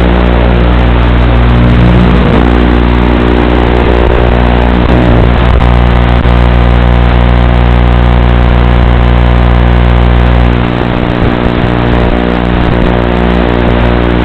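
Loud, steady electrical buzz on the audio track of an analog FPV video link, a hum of many even tones that barely changes as the quadcopter manoeuvres.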